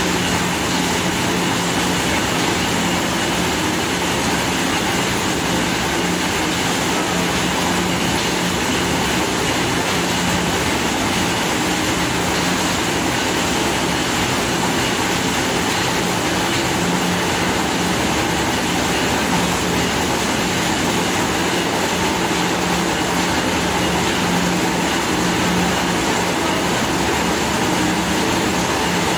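Corn milling machinery running steadily at work: a continuous loud machine noise with a constant low hum.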